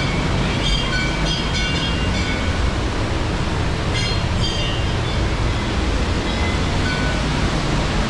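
Steady, heavy roar of a waterfall in high flow rushing close by. Brief faint high ringing tones sound over it about a second in and again around four seconds.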